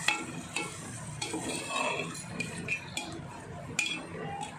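A metal slotted spoon scraping and clinking against a metal pot as a wet masala is stirred, in irregular clicks and scrapes.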